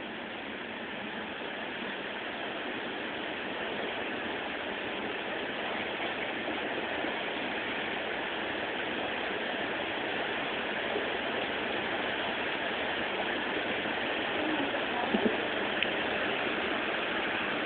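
Steady rushing of heavy rain that slowly grows louder, with a couple of faint knocks about fifteen seconds in.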